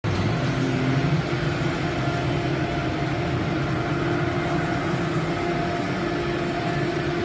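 Tornos Swiss-type CNC lathe running while it machines small titanium parts: a steady mechanical hum and whir with a few constant low tones.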